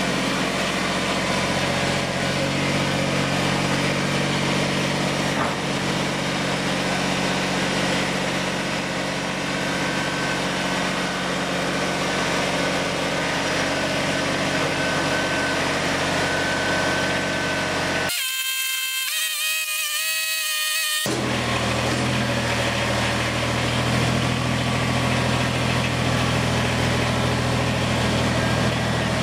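A machine running with a steady loud drone, a low hum under an even hiss. About 18 seconds in it gives way for some three seconds to a different sound of several high, stepping tones, then the drone returns.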